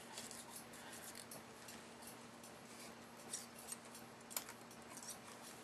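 Faint, scattered light metallic clicks and taps, about half a dozen, from a feeler gauge being worked into the fulcrum clearance of a VW swing axle. A faint steady hum runs underneath.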